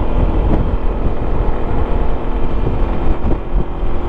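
Wind buffeting a helmet-mounted microphone on a moving 2021 Yamaha XMAX 300 scooter, a steady low rumble, with the scooter's single-cylinder engine running evenly underneath at cruising speed.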